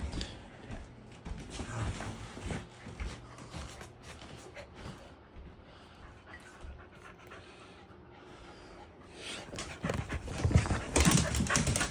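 Dogs panting and scuffling as they wrestle over a toy, with scattered short knocks and rustles, busier and louder near the end.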